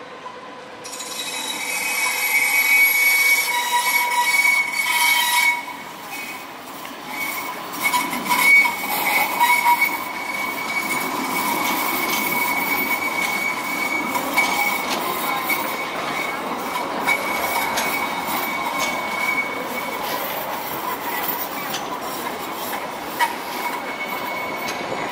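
Alstom Citadis X05 light rail tram rolling past on curved track, its wheels squealing in steady high tones. The squeal sets in about a second in and is loudest over the next few seconds.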